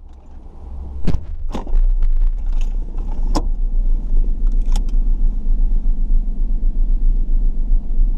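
Car engine running, heard from the dashboard inside the cabin as a steady low rumble that sets in about two seconds in. Several sharp clicks and knocks come in the first five seconds.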